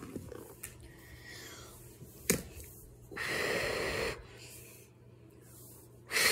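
Two long, breathy puffs of air close to the microphone, each lasting about a second, with a single sharp click shortly before the first.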